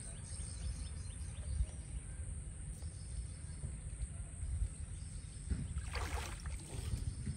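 Water splashing briefly about six seconds in as a man wading waist-deep in a pond works a fishing net, with a smaller splash just after, over a low steady rumble of outdoor noise.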